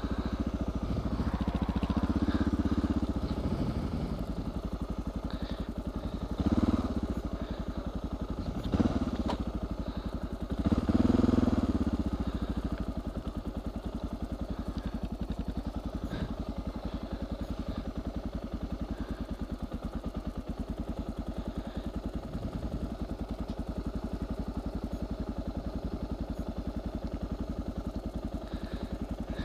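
Suzuki DR650 single-cylinder motorcycle engine running steadily at low speed, with four short, louder swells of throttle in the first twelve seconds.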